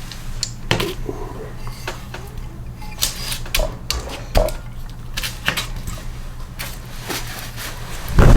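Metal engine parts being handled during a teardown: irregular clinks, taps and knocks, a dozen or so scattered through. A loud rushing noise sets in right at the end.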